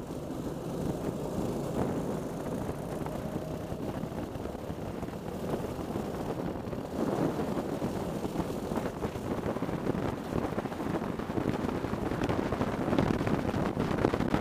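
Racing kart engine running at speed, heard from the kart itself, mixed with wind buffeting the microphone; the sound gets louder about seven seconds in and again near the end.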